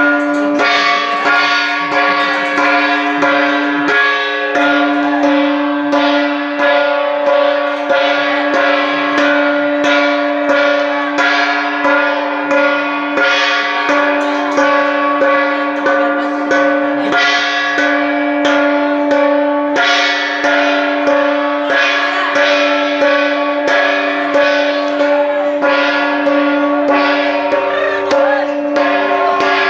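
Hmong shaman's ritual gong beaten in a steady rhythm, about two strokes a second, each stroke ringing on so that the tone never dies away.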